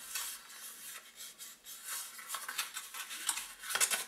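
Gift-wrapping paper rustling and crackling as it is pressed and rolled onto a cardboard tube, in a run of quick, irregular crinkles and rubs that grow busier near the end.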